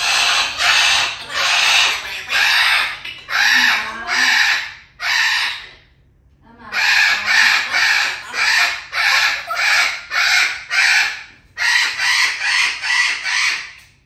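Parrot giving loud, harsh repeated calls, about two a second, in two long bouts with a short break about six seconds in.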